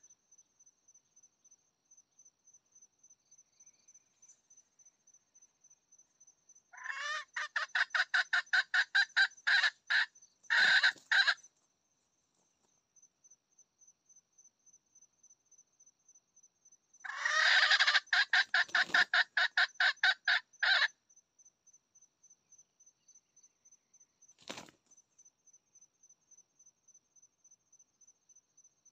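Red junglefowl calling: two loud runs of rapid, evenly repeated notes, each lasting about four seconds, a few seconds in and again past the middle, then one short call later. A faint, steady, high insect trill pulses underneath throughout.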